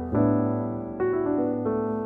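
Background piano music: notes and chords struck a few times, each fading away before the next.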